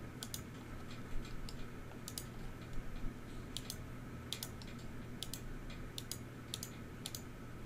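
Computer mouse clicking irregularly, a dozen or so sharp clicks, several in quick pairs, over a low steady hum.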